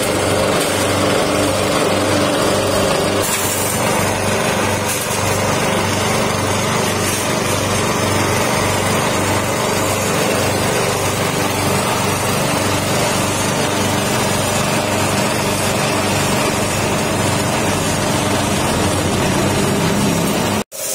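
Small single-cylinder petrol engine running steadily at working speed, driving the cutter of a grass chopper as stalks of elephant grass are fed in and chopped.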